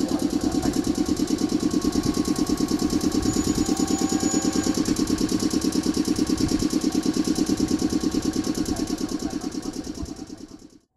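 Stopped 121 series electric train's air compressor running, a fast, steady chugging rhythm. It fades out near the end.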